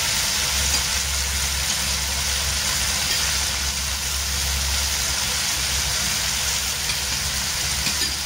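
Tofu and fish frying in oil in a nonstick wok: a steady sizzle, over a steady low hum.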